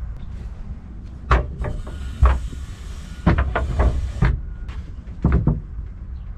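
Wooden slatted fold-down bench being swung down from the wall of a camper van and sat on: a string of wooden knocks and clatters, the loudest about two seconds in, over a steady low rumble.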